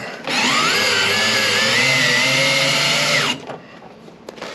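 Power drill running for about three seconds: its whine rises as it spins up, holds steady, then drops off as it stops.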